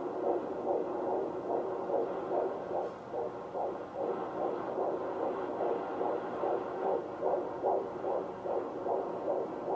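Fetal heartbeat of a 16-week pregnancy picked up by a handheld Doppler probe on the belly: a fast, even whooshing pulse of about two and a half beats a second, a heart rate the midwife put at 145 beats a minute.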